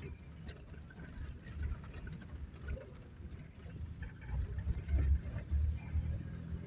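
Wind buffeting the microphone of a moving vehicle on a road, an uneven low rumble that swells in gusts, loudest about five seconds in.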